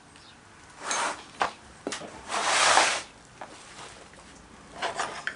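Handling of a sand-casting moulding flask and tools: a short scrape about a second in, a couple of sharp clicks, a longer scrape around the middle, and another short scrape with a click near the end.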